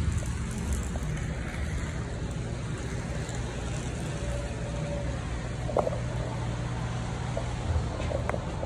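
Model trains running on a museum layout: a steady low rumble and hum, with a few light clicks about six and eight seconds in.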